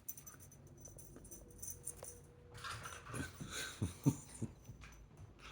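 A dog at play, its collar tags jingling, then a few short, low, falling vocal sounds from the dog about three to four seconds in.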